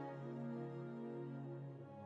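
Soft, slow background music of sustained, held notes, with a change of chord near the end.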